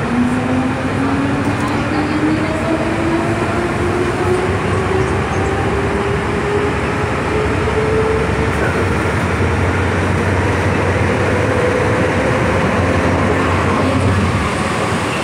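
MTR M-Train electric multiple unit pulling away from a station, its traction motors giving a whine that climbs steadily in pitch as the train gathers speed, over the steady rumble of the running train.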